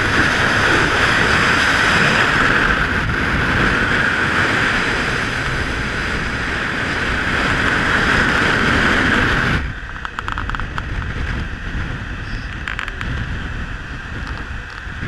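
Steady wind and road noise of a Suzuki V-Strom motorcycle riding at highway speed. About ten seconds in it drops abruptly quieter and duller, with a few faint clicks.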